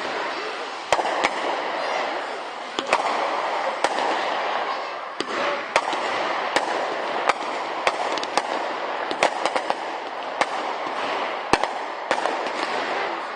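A firework display: sharp bangs of aerial fireworks bursting, irregular and one or two a second, over a continuous noisy background.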